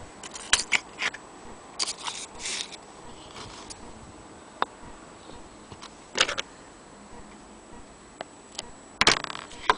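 Handling noise: scattered light clicks, taps and short scrapes as a metal gramophone sound box is picked up and turned in the hand, with the busiest cluster near the end.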